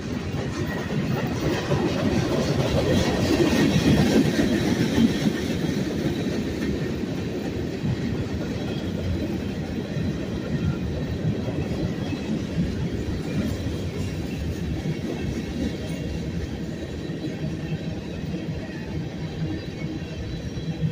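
Freight cars rolling past at close range, gondolas and then covered hoppers: a steady rumble and clatter of steel wheels on the rails, loudest a few seconds in.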